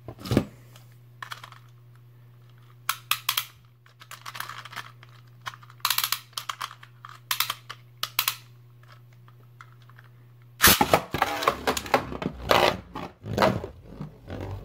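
Sharp plastic clicks and rattles as a spinning Beyblade top is snatched from its plastic stadium and fitted onto a launcher. About two-thirds of the way in, a loud launch: the top hits the stadium and spins and scrapes around the plastic bowl.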